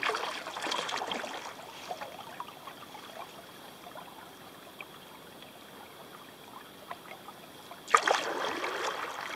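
Kayak paddle strokes in the water: a stroke with water trickling off the blade at the start, a quieter stretch of dripping and lapping, then another splashing stroke about eight seconds in.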